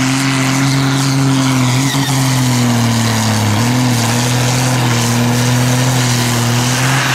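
John Deere 6076 six-cylinder turbodiesel in a pulling tractor, running flat out under heavy load as it drags the weight sled. The engine gives a loud, steady note, and the revs sag briefly about halfway through.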